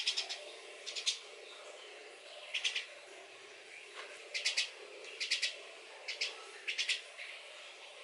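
Starling chick calling: short, harsh chirps in quick clusters of two to four, repeating about every second, typical begging calls of a hand-fed young starling.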